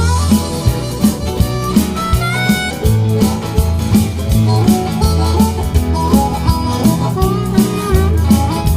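Background music with a steady drum beat, a heavy bass line and a melody on top.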